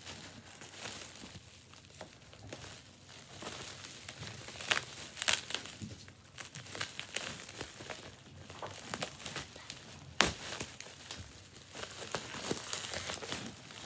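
Bubble wrap and plastic packaging crinkling and rustling as a package is unwrapped by hand, with a few sharp louder snaps, the loudest about ten seconds in.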